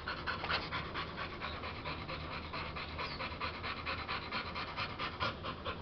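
American Bully dog panting quickly and steadily, several breaths a second, mouth open.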